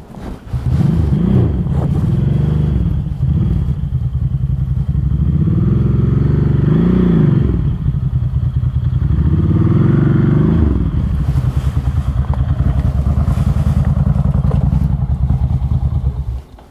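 Adventure motorcycle engines running close by, with several rising-and-falling revs as a bike rides up and over a fallen log across a dirt track; the engine sound cuts off suddenly near the end.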